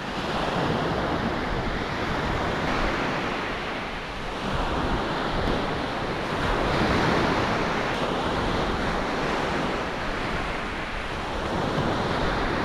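Small waves breaking and washing up a sandy beach, the surf swelling and easing every few seconds, with wind buffeting the microphone.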